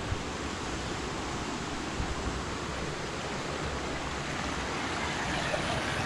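Steady rush of running water from a waterfall stream.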